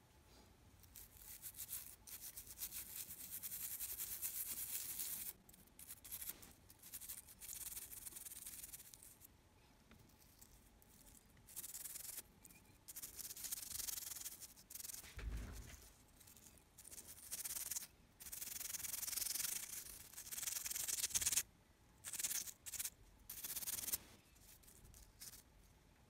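Toothbrush bristles scrubbing a small wet circuit board, in strokes of a few seconds at a time with short pauses between them.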